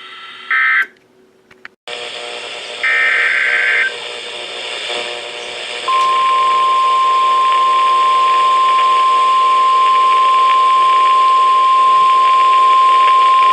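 NOAA Weather Radio alert tones over a steady radio hiss. A short squawk of SAME data tones comes about half a second in, followed by a brief dropout and a click. A one-second SAME header burst sounds about three seconds in, and the steady 1050 Hz warning alarm tone starts about six seconds in, announcing a new warning.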